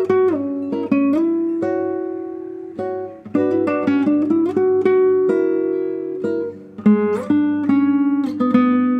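Solo classical guitar playing a slow melody of plucked, ringing notes over a bass line, with audible slides between some notes.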